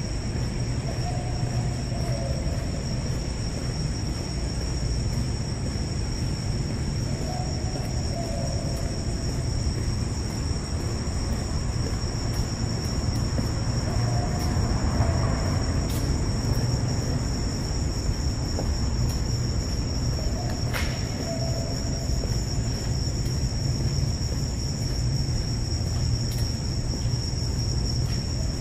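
Steady high-pitched insect buzz over a constant low rumble. A short, lower warbling call recurs every few seconds.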